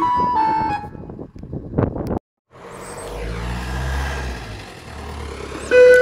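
Giovanni ice cream van's chime playing its tune in single electronic notes, breaking off about a second in. After a brief dropout, a vehicle engine rumbles, and the chime starts up again, louder, near the end.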